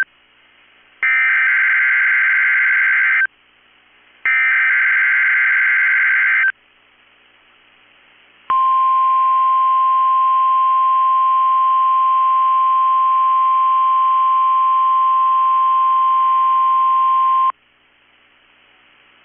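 Two bursts of EAS/SAME digital header tones from a NOAA Weather Radio broadcast, each about two seconds long with a second's gap between them. After a pause of about two seconds comes the steady 1050 Hz weather radio warning alarm tone, sounding for about nine seconds for a weekly test, then cutting off suddenly to faint hiss.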